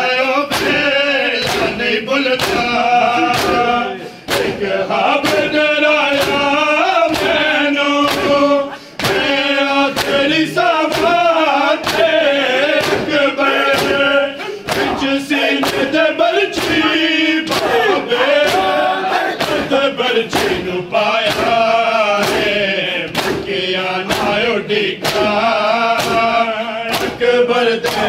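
A crowd of men chanting a noha (mourning lament) in chorus, over a steady beat of sharp slaps of hands on bare chests (matam), a little under two a second.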